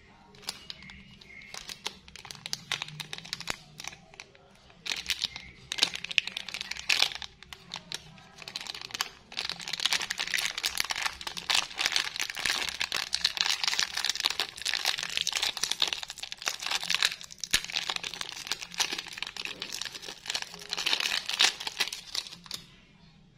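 Plastic lollipop wrapper crinkling as it is handled and torn open: scattered crackles at first, then dense, continuous crinkling from about ten seconds in, stopping just before the end.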